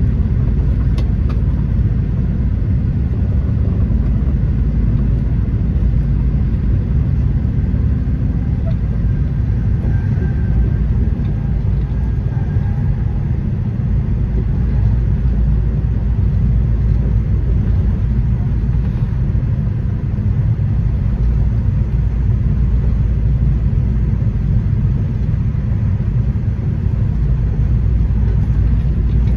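Steady low rumble of an Amtrak Acela train running at speed, heard from inside the passenger car.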